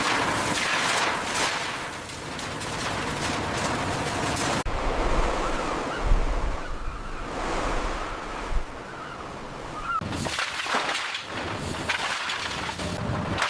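Loud industrial noise, a dense rushing and crackling, with a deep rumble in the middle and abrupt changes about five and ten seconds in.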